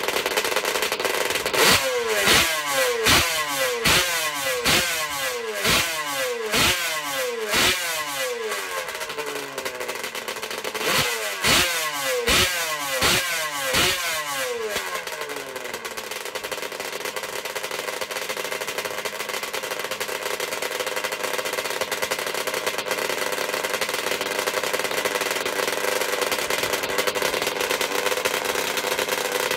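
Yamaha Banshee's twin-cylinder two-stroke engine blipped over and over, each blip jumping up in revs and falling back, in two runs of quick blips; from about halfway it settles into a steady idle.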